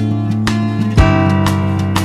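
Background music led by plucked acoustic guitar, with notes changing about every half second and a loud accent about a second in.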